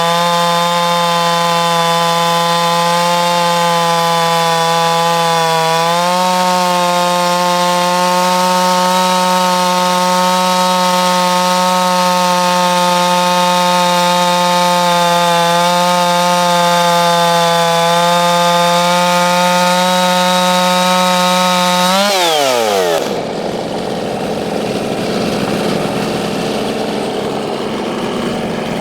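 Stihl MS660 two-stroke chainsaw held at full throttle, ripping through the log on a chainsaw mill; its pitch stays steady and steps up slightly about six seconds in. Near the end the throttle is released and the engine note drops sharply, leaving the saw running rough at idle.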